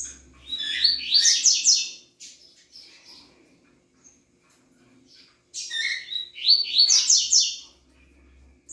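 Male double-collared seedeater (coleirinho) singing: two phrases of quick, repeated high notes, each about two seconds long. The first comes about half a second in, the second a little past halfway.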